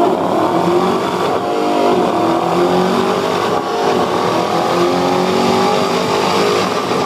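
Ford Shelby Mustang's V8 run at full throttle on a chassis dynamometer, loud throughout, its pitch climbing and dropping back several times.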